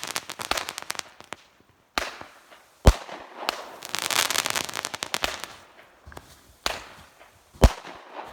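Consumer fireworks going off: sharp bangs about two and three seconds in (the second the loudest) and again near the end, with stretches of crackling between.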